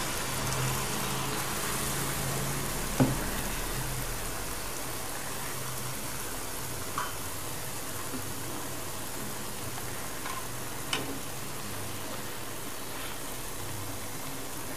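Jalebi batter frying in hot oil in a kadai: a steady sizzle, with a sharp click about three seconds in and a few fainter clicks later.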